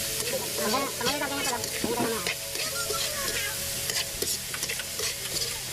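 Chopped snail meat sizzling as it fries in a steel wok, with a metal spatula repeatedly stirring and scraping across the pan.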